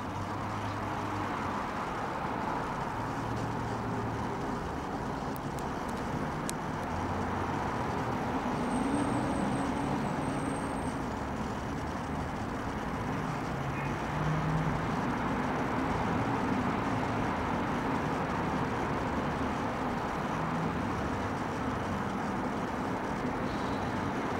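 Steady road-traffic noise: a constant hum with low engine tones swelling and fading, and no single clear event.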